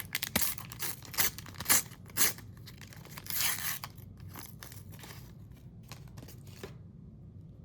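Panini sticker pack wrapper being ripped open by hand: several sharp tearing strokes in the first couple of seconds and a longer tear about three seconds in, then softer rustling of the wrapper and stickers.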